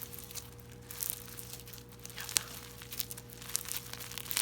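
Hands squishing and stretching a clear bingsu slime full of beads and sprinkles, giving scattered small crackles and pops.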